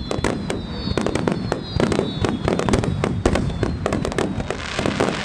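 Fireworks finale barrage: aerial shells bursting in rapid, overlapping bangs, several a second, over a continuous low rumble, with a thin high whistle in the first two seconds.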